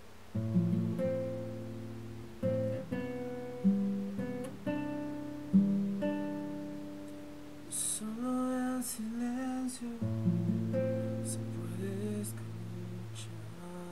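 Acoustic guitar music: plucked notes and chords, each ringing out and fading. A voice sings briefly a little past the middle.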